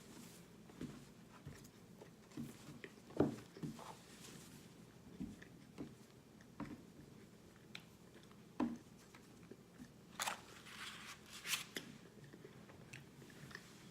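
Biting and chewing hard, crunchy microwave-baked cornstarch chunks: irregular crunches, the sharpest about three seconds in, with a denser crackling run of chewing about ten seconds in.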